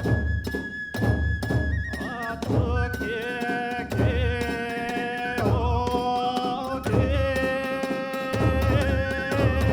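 Kagura ensemble music: a deep drum beats steadily, sharp strikes ring across it, and a fue bamboo flute holds a high note. About two seconds in, a lower held melody line takes over.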